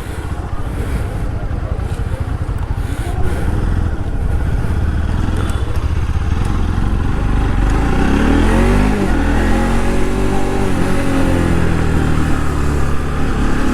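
Motorcycle riding, the engine running under a heavy rumble of road and wind noise; about eight seconds in the engine note rises as it accelerates.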